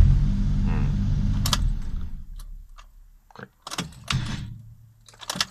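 Suzuki Jimny JA11's small three-cylinder engine idling just after starting, then stopping about two seconds in. Several sharp clicks follow as the key is worked for another start attempt, the engine not turning over.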